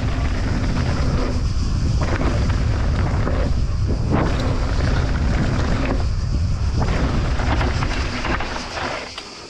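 Mountain bike rolling fast over a loose gravel and dirt trail: tyre rumble over the stones and knocks and rattles from the bike, under heavy wind buffeting on the action camera's microphone. It quietens near the end as the bike eases off.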